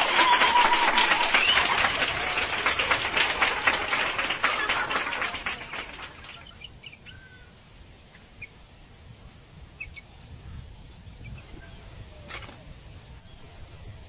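Yellow-vented bulbuls flapping and scrabbling inside a bamboo cage trap, a loud dense crackle with a few calls, which fades out about six seconds in. After that it is quieter, with scattered short chirps and two sharp clicks near the end.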